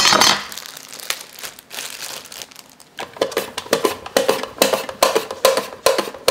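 Plastic food packaging crinkling and tearing as a knife cuts it open. About three seconds in, a cucumber is pushed across a mandoline slicer in quick, even strokes, about three a second.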